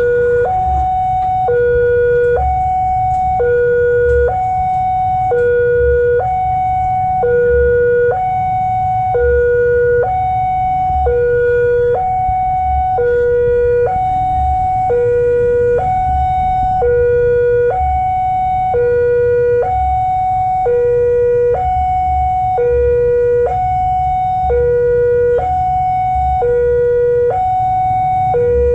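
Railway level-crossing warning alarm sounding: an electronic two-note signal alternating steadily between a lower and a higher tone, each held about a second, warning that a train is approaching. A low hum runs underneath.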